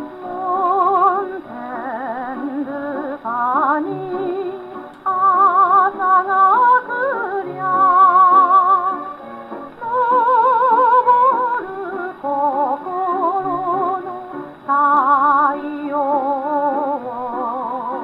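Victrola Credenza acoustic gramophone playing a 1952 Victor 78 rpm shellac record: a singer with a strong wavering vibrato over instrumental accompaniment.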